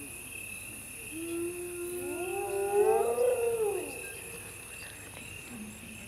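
Spotted hyena giving one long, low whooping call that rises slowly in pitch and then falls away, starting about a second in.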